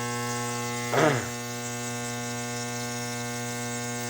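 Nebulizer compressor running with a steady hum. About a second in, a brief, louder sound falls quickly in pitch.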